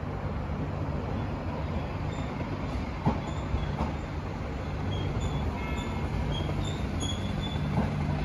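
Train wheels rolling on track with a steady low rumble, a few sharp clicks over rail joints and short, high wheel squeals.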